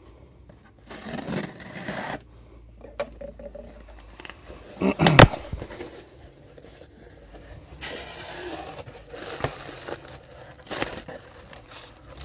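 Box cutter slitting packing tape on a cardboard shipping box, then the cardboard flaps scraping as they are pulled open, with one sharp thump about five seconds in. Plastic air-pillow packing crinkles near the end.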